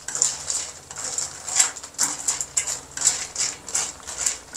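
A metal spatula scraping and stirring in a pan of coconut-milk sauce as it reduces on the stove, a quick scratchy stroke about two or three times a second.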